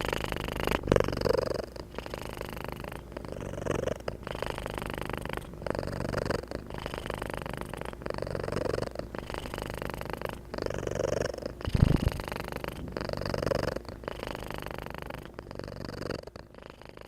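Domestic cat purring steadily and close, in regular breath cycles of about a second and a half. There is a single low thump about twelve seconds in, and the purr fades away near the end.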